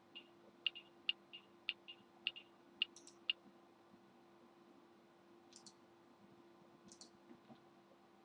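Computer mouse button clicking, faint and sharp: about two clicks a second for the first three seconds, then two quick double clicks later on.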